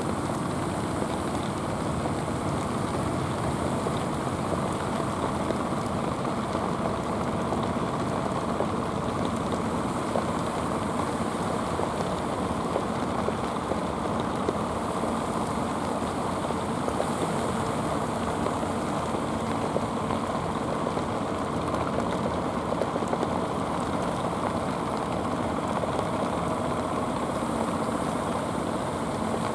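Engines of outrigger fishing boats running steadily, mixed with the wash of surf.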